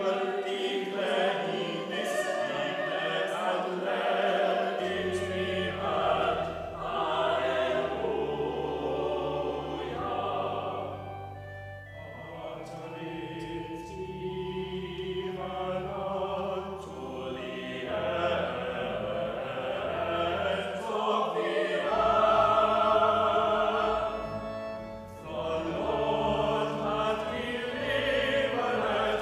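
Choir singing with organ accompaniment; sustained low organ bass notes come in about five seconds in.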